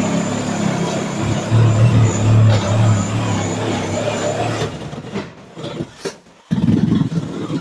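A loud motor-driven machine running steadily with a low hum. It fades out about five seconds in and starts up again near the end.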